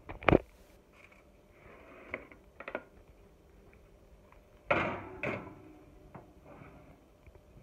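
Kitchen knocks and clatter: one sharp knock, a few light clicks, then two heavier thumps about half a second apart.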